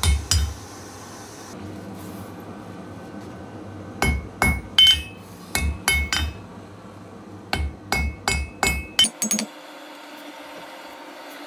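Hand hammer striking red-hot leaf-spring steel on an anvil: a couple of blows at the start, then two runs of quick, ringing strikes, about three a second, between about four and nine seconds in.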